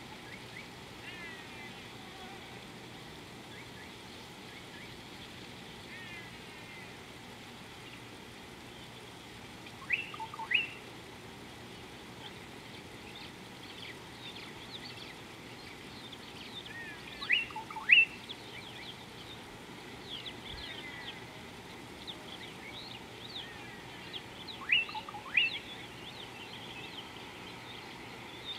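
Wild birds calling: three loud pairs of short, quickly rising calls, about seven seconds apart, over steady faint chirping and twittering from other birds.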